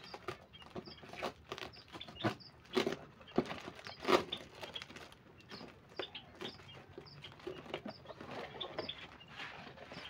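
Cardboard box and plastic wrapping being handled and pulled open, with crinkling and irregular knocks. Small birds chirp in the background, short high notes repeating every second or so.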